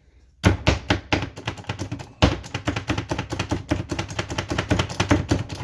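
Hand-operated food chopper dicing onions: a fast run of sharp chopping strikes, several a second, starting about half a second in, with one heavier hit a little after two seconds.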